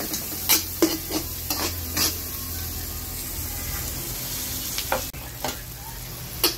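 Chopped onion and garlic sizzling in oil in a stainless steel wok, with a metal spatula stirring them and clinking against the pan about half a dozen times.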